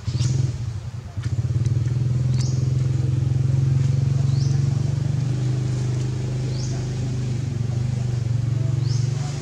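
A small engine running steadily nearby with a low drone that cuts in at the start and dips briefly about a second in. A short, high rising chirp repeats about every two seconds over it.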